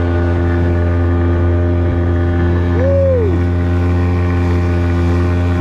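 Small outboard motor on an inflatable boat running steadily at speed, a constant engine drone over the rush of water and spray. A short whistle-like tone rises and falls about three seconds in.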